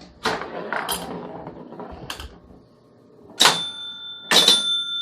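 1957 Gottlieb Ace High electromechanical pinball machine in play: about two seconds of mechanical clatter, then after a short lull its scoring bell is struck twice, about a second apart, each strike ringing on.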